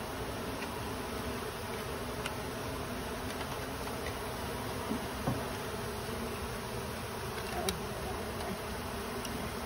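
Steady hum of many honey bees buzzing around their exposed comb as the colony is being cut out and moved. A few faint clicks from the comb and frame being handled.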